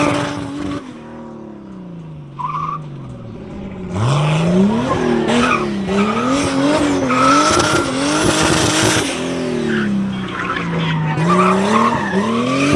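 Turbocharged BMW M20 2.5-litre straight-six engine of an E30 race car driven hard, its pitch rising and falling over and over with throttle lifts and reapplications. It is quieter for a few seconds near the start and then loud from about four seconds in, with tyres squealing.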